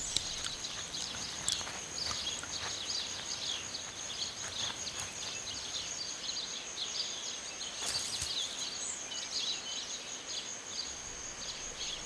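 Natural ambience: a steady high-pitched insect trill with many short bird chirps over it, and a few faint clicks.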